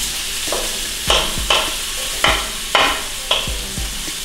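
Chunks of stew beef frying in oil in a skillet, sizzling steadily, while a utensil stirs and scrapes through the meat about six times, roughly every half second.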